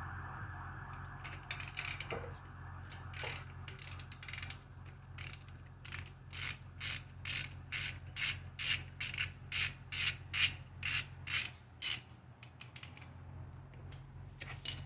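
Hand ratchet wrench clicking in back-and-forth strokes, loosening the engine's oil pump bolts. A few scattered strokes come first, then a steady run of about two strokes a second that stops a few seconds before the end.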